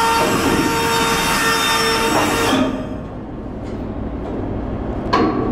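Steady mechanical noise with a hum from the ship's machinery, dropping quieter about two and a half seconds in, then a sharp knock near the end as the crew handle the wooden pilot ladder.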